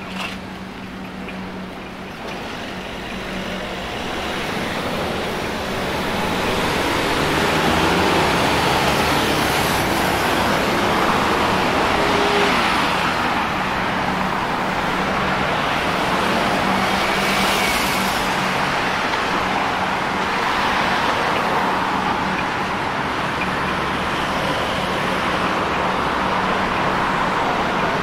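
Road traffic on a busy city street: cars and other motor vehicles passing. The noise grows louder over the first several seconds, then holds steady, with one vehicle passing close about two-thirds of the way in. A steady low hum runs underneath.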